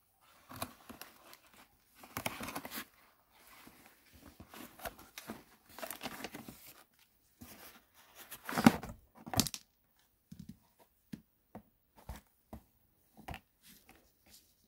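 Parcel packaging being torn open and crinkled: irregular rustling and tearing, loudest about nine seconds in, then a few light clicks and knocks as items are handled.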